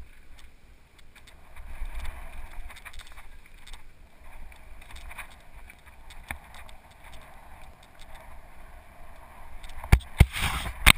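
Mountain bike ridden down a dirt singletrack, heard from a helmet-mounted camera: wind rushing on the microphone over tyre rumble, with small clicks and rattles from the bike. Near the end come a few loud knocks.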